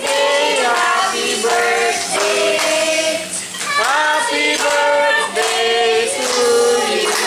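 A group of voices singing a birthday song together, with held and gliding notes.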